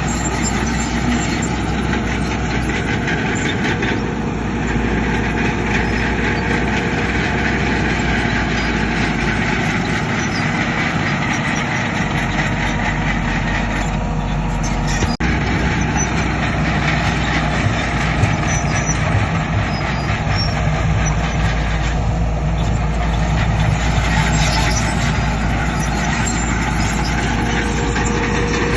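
Heavy earthmoving machinery's diesel engines running continuously, with a brief dropout about halfway through.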